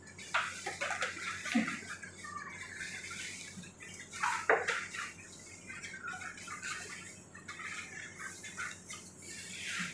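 A black waterproof apron being folded and bundled by hand: irregular rustling and crinkling, with sharper crackles about a second and a half and four and a half seconds in.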